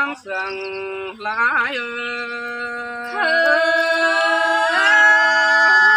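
Thái folk singing: a voice sings a slow melody in long held notes, joined by a second voice about three seconds in.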